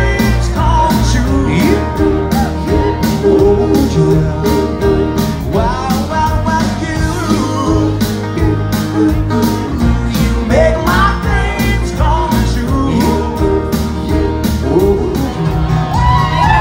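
Live band playing: a drum kit keeps a steady beat under electric and acoustic guitars.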